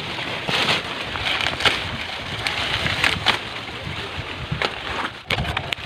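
Dry corn stalks and leaves rustling and crackling as someone pushes through them, a steady papery rustle with many short crackles.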